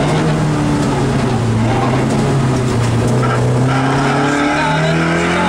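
Competition car's engine heard from inside the cockpit, running hard under load. The revs ease off slightly in the first couple of seconds, then climb steadily from about halfway through as the car accelerates out of a corner.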